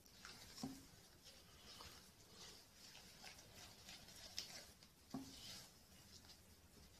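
Faint soft scraping and squelching of a silicone spatula stirring thick, wet semolina batter in a glass bowl, with a couple of light knocks against the bowl.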